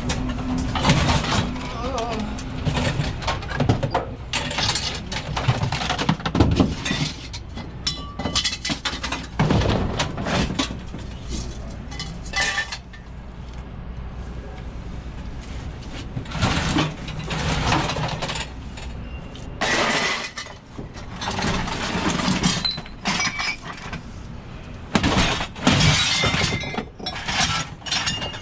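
Pieces of scrap metal being tossed and sorted, with repeated irregular clanks and crashes, some ringing on.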